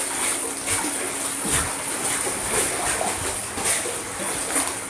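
Pool water splashing and sloshing as a Boston terrier dog-paddles, with a splash from its strokes every half second to a second.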